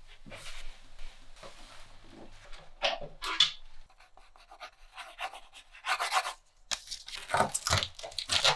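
Paper and cardboard handling with scratchy rubbing, then from about six seconds in a run of loud rasping scrapes as scissors cut through the packing tape on a cardboard box.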